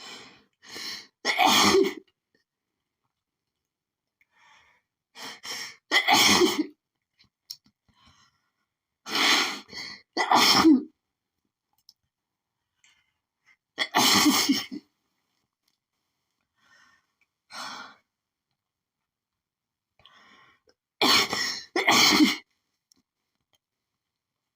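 A woman's allergic sneezing fit: about seven loud sneezes a few seconds apart, some in quick pairs, with short catching breaths before them. She thinks pollen set it off.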